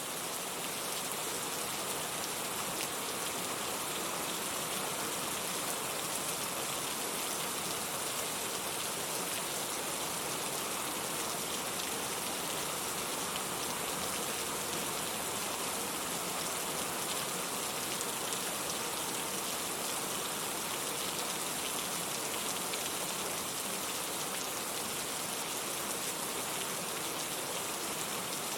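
Steady rain falling, a dense even hiss with fine crackle of drops pattering on surfaces.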